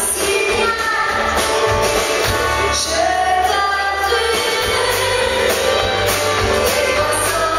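A woman singing into a microphone over a live band with a steady beat, holding some notes for about a second.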